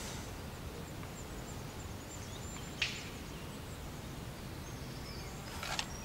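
Outdoor ambience by a lake: a steady low rumble of background noise, faint high chirps, a single short click about three seconds in and another sharp tap near the end.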